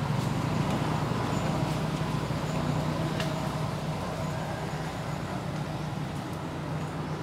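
A steady low engine hum and rumble from a motor running, with a few faint clicks over it.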